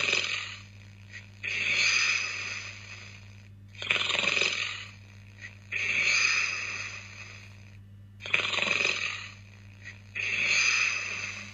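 A person snoring: about three breath cycles, each a pair of noisy rasping breaths, the second longer than the first, with a steady low hum underneath.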